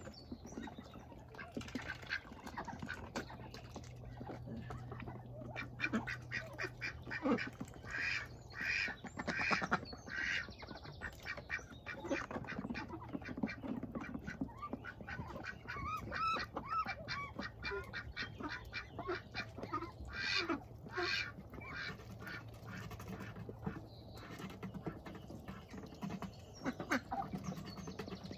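Ducks dabbling and drinking at a plastic water tub: quick runs of wet, splashy bill-clicks in the water, mixed with some low quacking.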